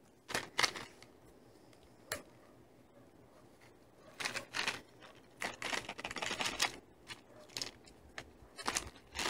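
Small plastic candy wrapper being handled and torn open along its rip line, crinkling and crackling in short irregular bursts.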